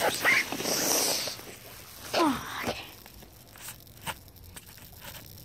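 Plastic bags and cardboard boxes rustling and crinkling as a child squeezes through a box fort. A short vocal sound falling in pitch comes about two seconds in, and a couple of sharp knocks follow near the end.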